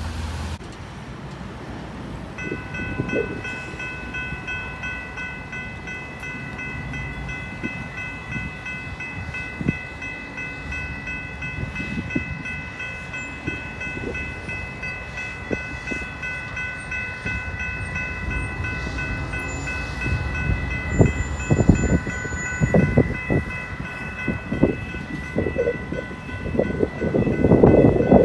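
Railroad crossing warning bells ring steadily as the gates work. In the last third a train approaches, its rumble and wheel clatter growing louder toward the end.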